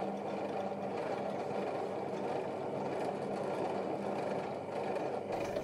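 Cheap bench drill press's electric motor running steadily with a low hum, the spinning bit fed down onto a thin-walled steel square tube.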